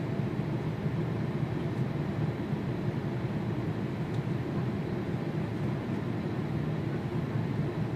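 Jet aircraft engine noise: a steady low rumble that neither rises nor falls.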